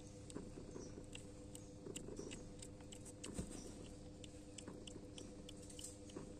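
Newborn kittens suckling: soft, irregular wet smacking and clicking as they nurse, with a soft knock about three and a half seconds in.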